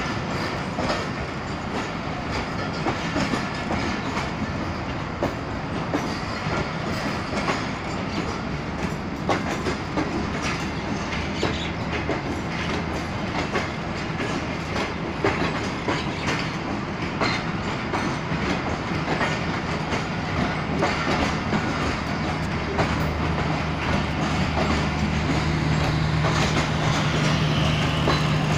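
Pakistan Railways passenger coaches rolling past along the platform, wheels clicking over rail joints over a steady rumble. Toward the end a steady low hum grows louder as the power van, the train's generator car, comes level.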